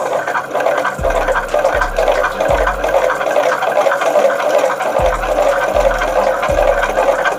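Motorcycle flywheel alternator rigged as a generator, spinning through its gear drive with a steady whirring rush. Short low knocks come through, several in a row about three quarters of a second apart.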